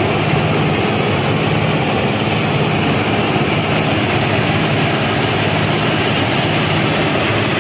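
FRM-85F formation rehabilitation track machine working along the line, its diesel engines and ballast-screening machinery running in a loud, steady mechanical din with a low hum underneath.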